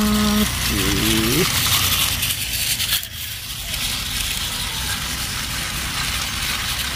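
Battery-powered toy trains running on plastic track: a steady rattling whir of small motors and wheels. In the first second and a half, a held tone and then a short wavering tone sound over it.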